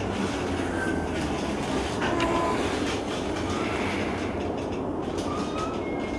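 Running noise of a JR East E233-1000 series commuter train heard from the cab of its unpowered leading car: a steady rumble of wheels on rail with no traction-motor sound, and faint short squeals from the wheels now and then.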